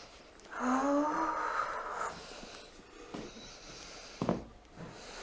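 A woman's breathy moan, rising slightly in pitch and lasting about a second and a half, then a single brief knock near the end.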